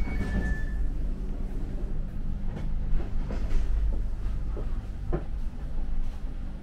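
Steady low rumble inside a Sprinter commuter train carriage, with scattered knocks and clacks from the carriage. A two-tone beeping stops about a second in.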